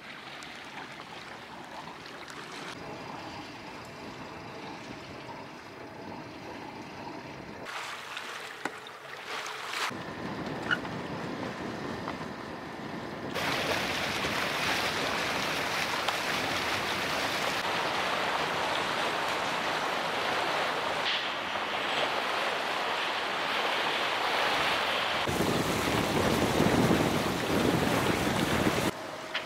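Wind buffeting the microphone and water rushing past a sailboat's hull as the boat moves under way. The noise changes abruptly several times and grows much louder about halfway through.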